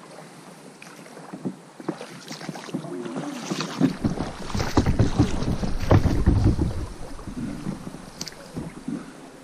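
Water splashing and knocking around an inflatable boat as it is paddled and pushed through a narrow, snag-filled river channel. A deep rumble of jostling against the microphone swells for a few seconds in the middle.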